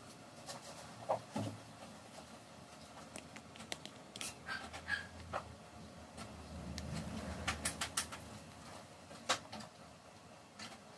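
Quiet baby spoon-feeding sounds: scattered light clicks and scrapes of a spoon against a bowl, with small mouth and breath sounds from the baby.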